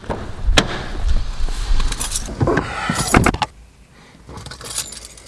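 Car door handle pulled and the door opened with a click, rustling as someone climbs in, then the door shut with a solid knock about three seconds in. After that it is quieter and muffled, inside the car's cabin, with light rustling.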